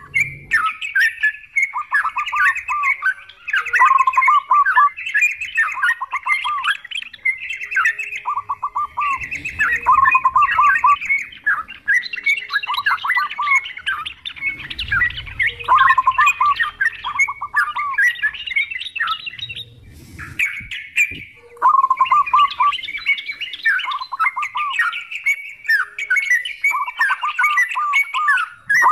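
Yellow-vented bulbuls singing bubbly, chattering phrases over and over, mixed with the quick rolling coos of zebra doves. The song runs almost without a break, pausing only briefly about two-thirds of the way through.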